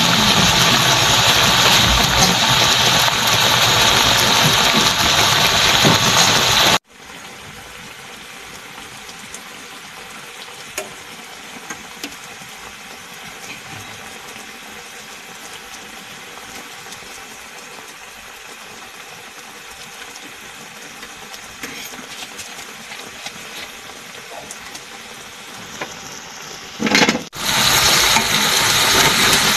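Coconut-milk fish stew boiling hard in a wok, a loud steady bubbling hiss. It cuts off abruptly about seven seconds in to a much quieter hiss with a few faint ticks. It comes back loud near the end as the stew is stirred with a ladle.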